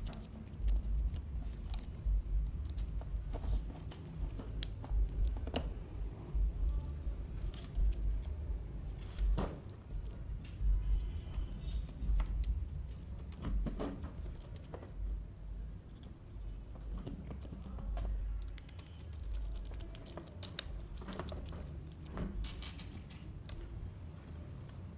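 Light clicks and rattles of laser-cut wooden arm parts, screws and a micro servo being handled and fitted together on a tabletop, with dull bumps of the parts against the table.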